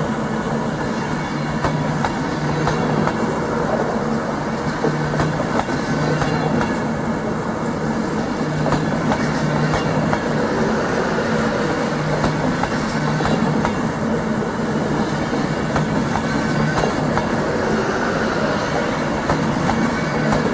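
A long passenger train passing slowly, its wheels clicking over rail joints, with a low hum that swells and fades as the carriages go by.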